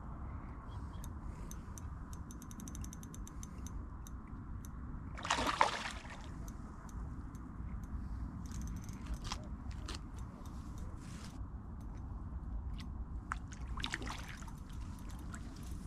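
Lake water sloshing and splashing as a hooked carp is played in close, with one louder splash about five and a half seconds in and smaller ones later. A quick run of light ticks sounds about three seconds in, over steady low background noise.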